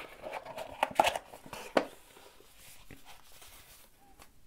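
Handling sounds of a bicycle power meter spider and its cardboard box and foam wrap: a few light knocks and rustles in the first two seconds, then quiet.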